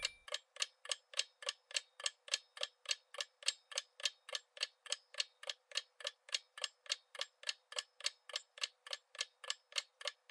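Ticking clock sound effect marking a quiz countdown timer: short, sharp, evenly spaced ticks at a bit over three a second, thin with no bass.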